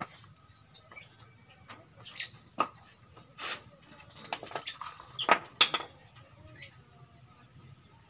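Budgerigars chirping in short, scattered squeaky calls and clicks, the loudest a little past the middle.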